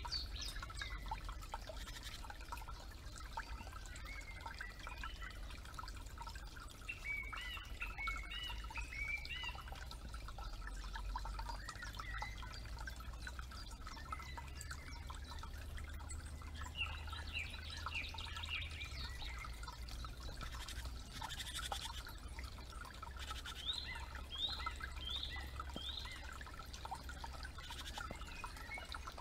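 Several songbirds singing with short whistled phrases over a faintly trickling forest creek, ending in a run of four short rising notes, with a steady low hum underneath.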